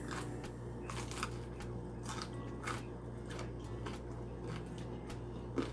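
Close-up chewing of crispy fried chicken wing: irregular crisp crunches and crackles as it is bitten and chewed, over a faint steady hum.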